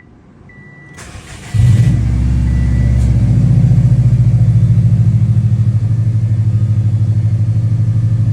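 A 2006 Subaru WRX's turbocharged flat-four is cranked by the starter about a second in, catches quickly and settles into a steady fast idle on a cold start after sitting all day. A warning chime beeps a few times as it starts.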